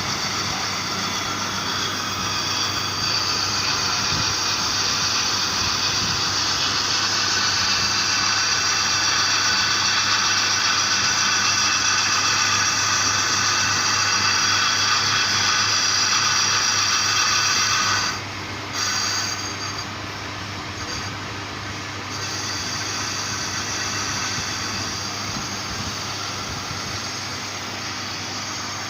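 Fiat tractor engine running steadily with a high-pitched whine over it; the whine drops away suddenly about eighteen seconds in.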